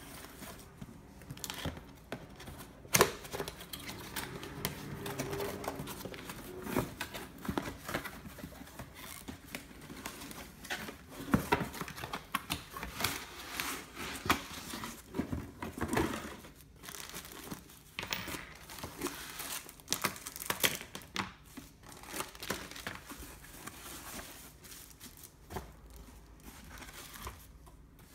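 Box being unpacked by hand: cardboard flaps and foam packing handled, plastic wrapping and bags crinkling and rustling, with scattered knocks as items are lifted out and set down, the sharpest about three seconds in.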